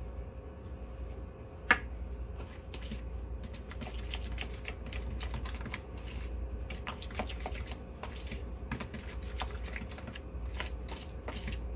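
A spoon stirring and mashing softened butter with garlic powder in a bowl: an irregular run of small clicks and scrapes as it knocks against the bowl, with one sharp tap just under two seconds in.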